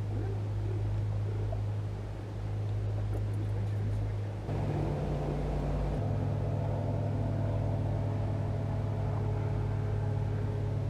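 Boat motor running steadily at low speed, a constant low hum. About four and a half seconds in, its sound changes and a higher, many-toned hum joins it.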